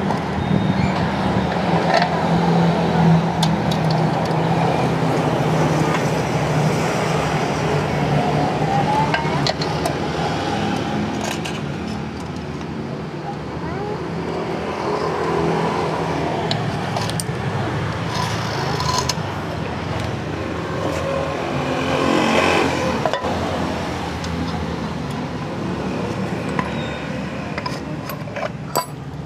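An engine running steadily at an even low pitch, with scattered light clicks and taps over it.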